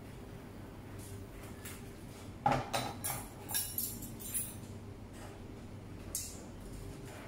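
Metal kitchen utensils (tongs and a spoon) clicking and clinking against dishes and a foil pan as roasted pork is handled: a quick run of sharp clicks from about two and a half to four and a half seconds in, and one more near the end.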